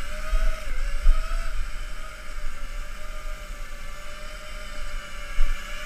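Tricopter with SunnySky R2205 2300KV brushless motors and propellers hovering on a 4-cell battery: a steady motor-and-propeller whine whose pitch dips briefly under a second in.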